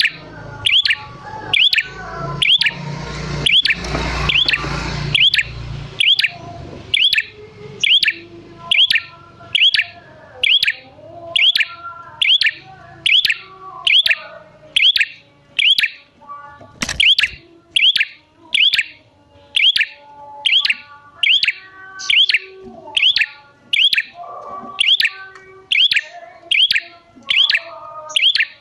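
A prinia (prenjak) calling over and over: a short, sharp, high note about three times every two seconds, with softer, lower bird notes between. There is a low rumble in the first few seconds and a single sharp click about 17 seconds in.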